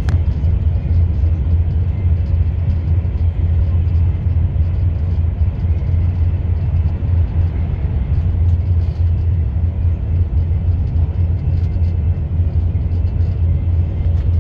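Steady low rumble of a vehicle in motion, even and unbroken, with most of its weight in the bass.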